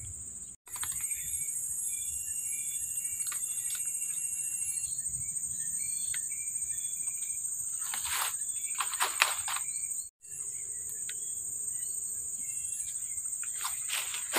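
Steady high-pitched insect drone with scattered short bird chirps. About eight seconds in, and again near the end, grass and reeds rustle as they are handled. The whole sound cuts out for an instant twice.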